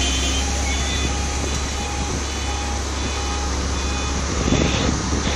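Heavy machinery's warning beeper sounding in short, even pulses, about two a second, over the steady low drone of an engine.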